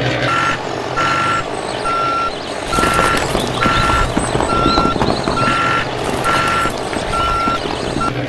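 A vehicle's reversing alarm beeping steadily, one high beep about every three-quarters of a second, over continuous truck engine noise.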